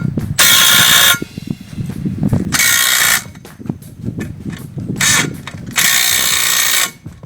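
Power drill driving the grub screws that lock a steel extension tube inside a ground screw: four bursts of running, the third one short, each stopping as a screw is tightened.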